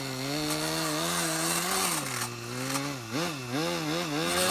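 Small glow-fuel (nitro) engine of a 1/12-scale Blizzard GP RC car running. Its note holds fairly steady at first, then rises and falls quickly several times over the last second and a half as the throttle is worked.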